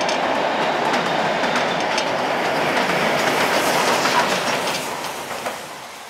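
Steam locomotive D3 639 and its wooden carriages rolling past close by, wheels clicking over the rail joints. The sound fades away in the last second or two as the train draws off.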